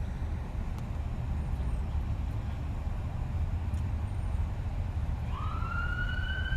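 A siren starts up about five seconds in, its wail rising and then holding steady, over a steady low rumble on the microphone.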